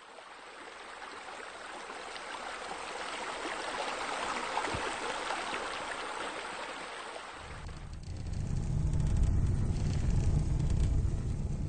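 Water spilling from a raised spa into a pool, a steady splashing hiss that swells and then fades. About seven and a half seconds in it gives way to the low rumble of a gas fire pit's flames.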